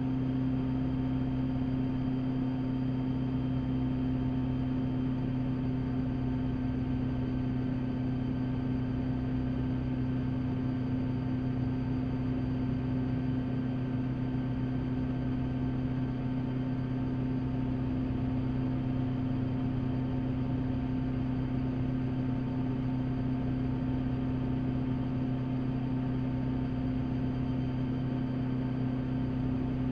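Rotorway kit helicopter's engine and rotors droning steadily, heard from inside the cockpit: a constant deep hum that holds the same pitch throughout.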